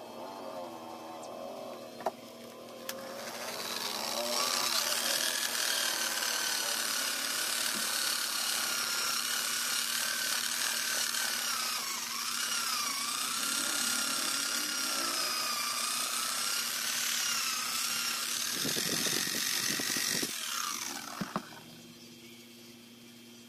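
Electric polisher spinning a wool buffing pad while a carbon-fibre shift knob's clear coat is buffed against it. The motor whine rises as it spins up a few seconds in, wavers in pitch, then winds down near the end.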